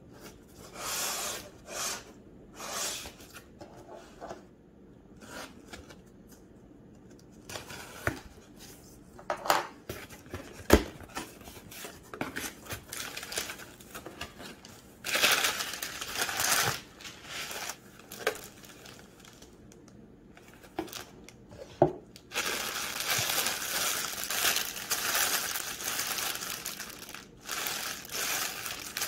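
Cardboard box being unpacked: crumpled kraft packing paper rustling and crinkling in irregular handfuls, with a few sharp knocks of cardboard flaps. Near the end comes a long, continuous crinkle of plastic wrap as a wrapped plush toy is lifted out.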